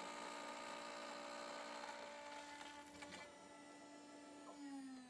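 Faint steady whine of a CNC router spindle turning a single-flute 1/8-inch cutter on a light finishing climb cut in brass. Its pitch falls slightly in the last second.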